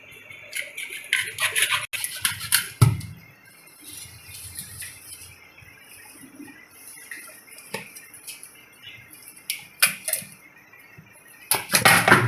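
Metal kitchenware being handled: clinks and scrapes in clusters near the start and again near the end, with a dull thump about three seconds in.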